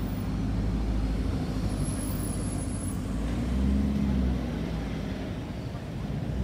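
Lamborghini Urus twin-turbo V8 running at low revs as the SUV pulls away slowly and turns, swelling louder for about a second around three and a half seconds in.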